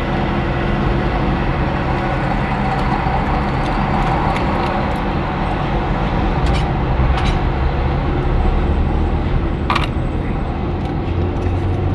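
A car's engine and road noise heard from inside the car as it drives on, a steady low hum. A few short sharp clicks come about halfway through.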